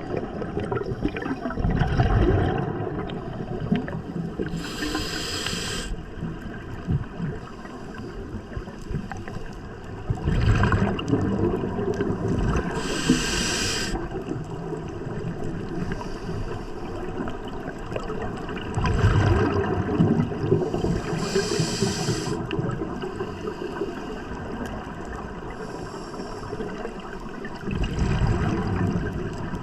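Scuba diver breathing underwater: a sharp hiss through the regulator on each inhale, about every eight seconds, and a rush of bubbling on each exhale.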